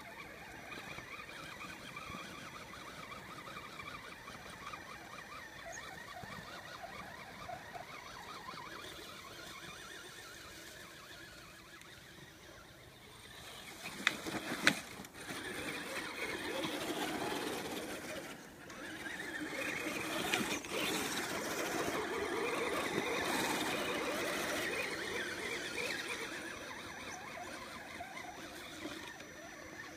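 RC rock crawler's brushless motor and drivetrain whining as the truck crawls over snowy tree roots. Two sharp knocks come about halfway through, and the sound is louder and busier for much of the second half.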